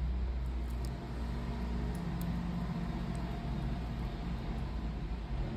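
Steady low background rumble, with a few faint small clicks.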